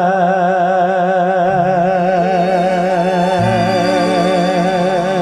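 Music: a singer holds one long, wavering final note over sustained accompaniment whose low notes change a few times.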